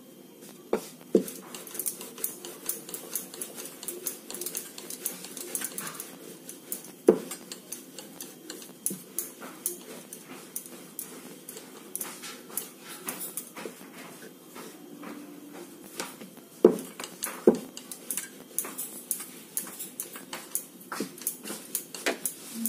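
Wooden rolling pin rolling out dough on a wooden board: a run of light clicks and knocks as the pin rolls and is set down, with a few louder knocks, over a faint steady hum.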